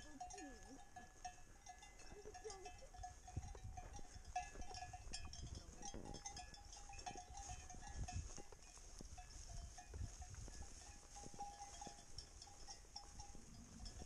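Livestock bells on a grazing flock of sheep ringing faintly and almost without pause, over a low rumble.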